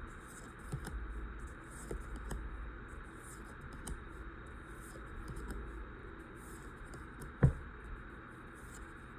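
Pokémon trading cards and their foil booster pack being handled: soft rustles and light clicks as cards are slid and flipped, with one sharper knock about seven seconds in.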